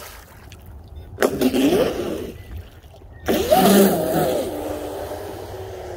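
Electric brushless motor of a Pro Boat UL-19 RC hydroplane, an Oxidean Marine 4082 2200KV six-pole, whining under throttle. The pitch rises and falls in two bursts, about a second in and again just past three seconds, then settles into a steady whine as the boat runs away across the water.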